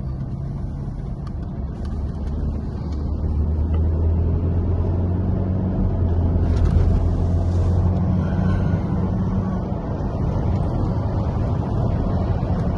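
Car engine pulling under acceleration: a low, steady drone that grows louder over the first several seconds, then eases slightly.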